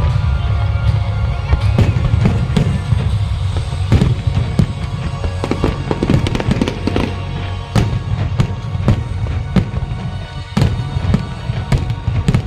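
Fireworks going off in rapid succession, many sharp bangs and crackles close together, over loud music.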